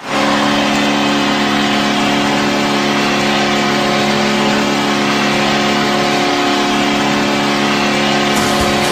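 NHL arena goal horn sounding one long, steady blast of several tones at once, held for about eight seconds without changing pitch.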